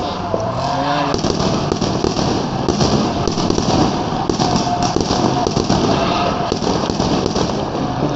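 Fireworks crackling and popping rapidly and without a break, many small cracks overlapping.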